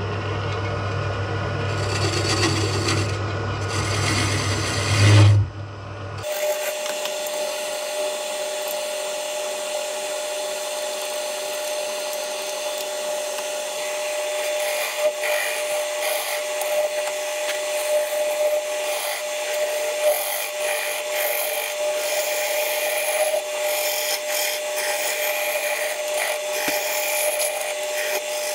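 Turning tool cutting a spinning ash blank on a 1970s Coronet wood lathe: a steady rough scraping and shaving of wood over the running lathe. A deep hum underneath drops out abruptly about six seconds in, leaving the cutting noise with a steady whine.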